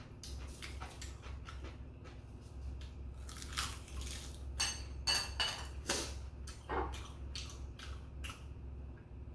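Close-up mouth sounds of roasted laver (gim) being chewed, with many short crackly crunches. A few light clinks of chopsticks against dishes come about halfway through.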